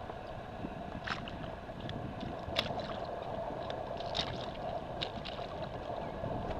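A hooked redfish splashing and thrashing at the boat's side as it is lifted from the water, with a few sharp splashes over a steady hum.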